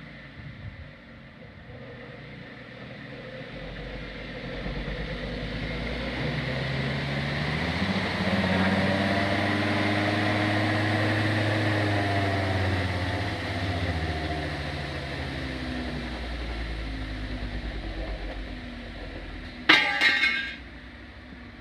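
2x72 belt sander driven by a treadmill motor through a speed controller, turned up from slow to full speed and back down: a motor whine that rises in pitch over several seconds, holds, then falls again. Near the end, a short, loud rasping burst is the loudest sound.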